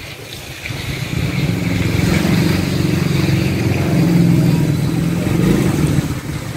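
A motor vehicle's engine running close by in street traffic, building up about a second in and easing off near the end.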